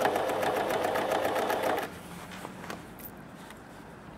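Domestic sewing machine stitching through a folded denim jeans hem with a fast, even clatter of stitches, then stopping about two seconds in, after which a few faint clicks are heard.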